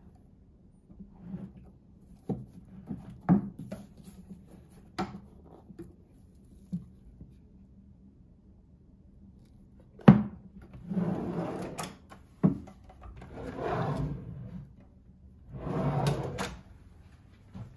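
Drawers sliding open and shut, three long slides after a sharp knock about ten seconds in, with scattered light clicks and taps before it.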